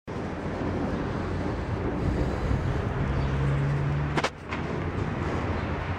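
Harley-Davidson Softail FXST's carbureted 1450 cc V-twin engine running at idle, a steady low rumble of exhaust pulses. A little past the middle it dips briefly, with two sharp clicks.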